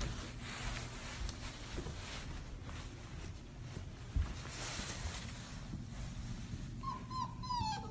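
A puppy whimpering a few times in short, high notes near the end, over a steady low rumble with a soft bump about four seconds in.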